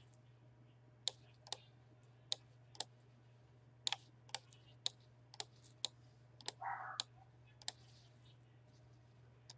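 Computer mouse clicking: sharp single clicks at irregular intervals, roughly one or two a second, with a brief soft rustle a little before 7 s, over a faint steady low hum.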